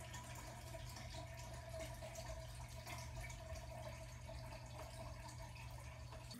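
Quiet room tone: a faint steady low hum with a few light ticks.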